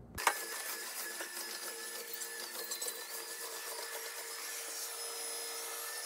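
Tineco Floor One S3 cordless wet-dry vacuum running in auto mode: a steady motor whirr with a high whine that steps up and down in pitch a few times. It starts abruptly just after the beginning.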